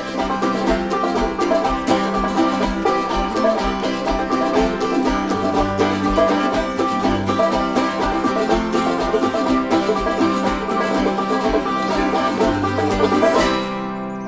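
Instrumental break of a bluegrass song, with fast banjo picking over a steady bass note. The music dies away near the end, leaving a ringing chord.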